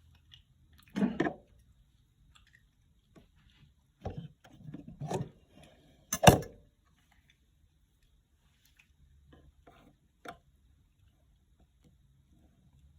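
Scattered handling knocks and clicks, with a short cluster around four to five seconds in and a single sharp click, the loudest, about six seconds in.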